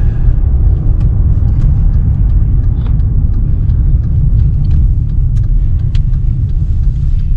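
A vehicle in four-wheel drive over rough ground: a steady, heavy low rumble of engine and road noise, with scattered small knocks and rattles.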